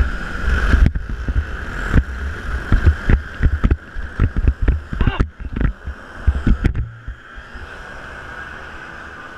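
Onboard racing kart engine running at speed, with wind buffeting on the microphone and a run of knocks and jolts from the chassis. About seven seconds in it drops to a quieter steady hum as the kart comes to a stop off the track.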